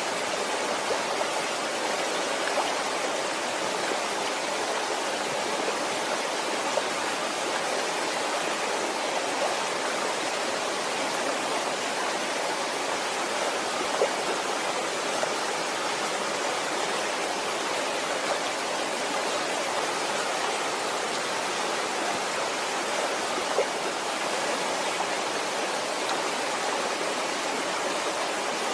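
Waterfall: a steady, even rush of falling water, with an occasional faint splash.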